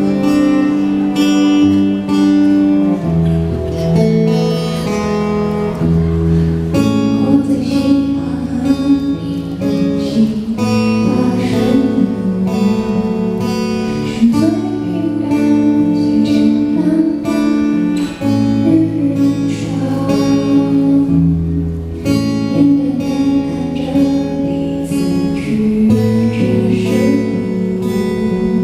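Live performance of a Mandopop song: strummed acoustic guitar with a woman singing.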